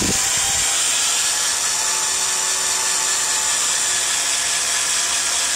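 DeWalt drill running at low speed, its black oxide bit cutting into half-inch steel to start a hole. A steady grinding hiss with no break.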